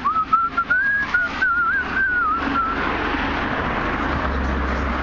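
A person whistling a short, wavering tune for about three seconds, with a few clicks in the first second. A low rumble comes in near the end.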